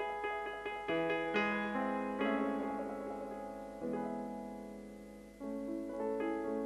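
Piano playing slow chords, each struck and left to ring and fade, with a new chord about every one to two seconds; the last fades low before fresh chords come in near the end.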